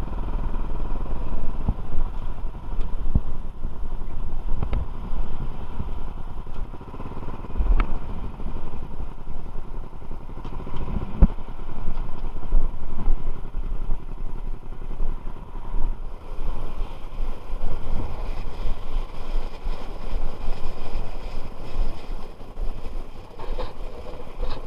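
A motor running steadily, with a few sharp knocks, the loudest about 8 and 11 seconds in.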